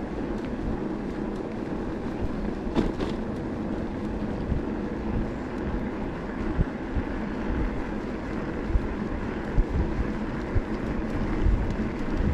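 Wind buffeting the microphone over a steady rumble of a Decathlon Rockrider e-bike's tyres on the road while riding, with a brief rattle about three seconds in.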